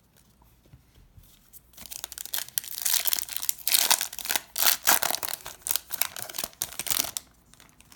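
Wrapper of a Topps Chrome baseball card pack being torn open and crinkled: a dense crackling that starts about two seconds in and stops about a second before the end.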